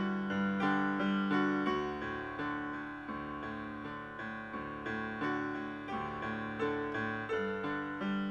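Background solo piano music, a flowing line of sustained notes and chords struck about twice a second.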